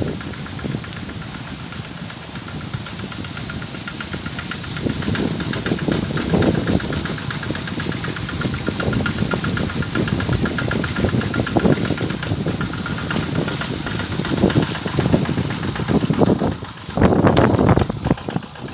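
Single-cylinder diesel engine of a two-wheel walking tractor running with an even, fast beat as it plows a flooded rice paddy. Near the end there is a burst of loud handling noise.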